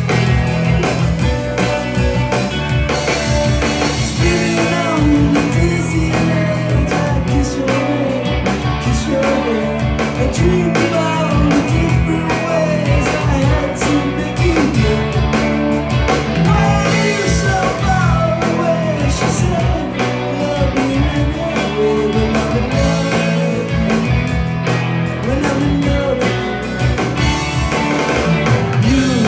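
Live rock band playing a song at full volume: drum kit, Guild bass guitar and electric guitar, with a melody line bending through the middle range.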